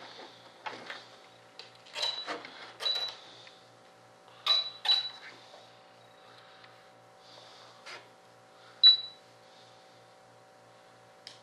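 Irregular sharp clicks and taps from RC radio gear being handled, several with a brief high ping, the loudest about nine seconds in.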